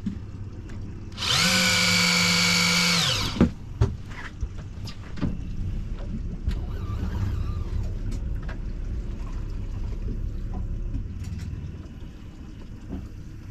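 Electric fishing reel's motor whining for about two seconds as it winds line, its pitch dropping as it stops. After it comes the low steady rumble of an outboard motor turning the boat.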